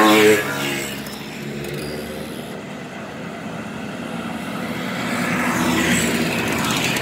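Simson two-stroke mopeds and Schwalbe scooters buzzing past one after another. The first passes close at the start with its engine note dropping as it goes by. The engines of the next riders grow louder toward the end as another moped comes near.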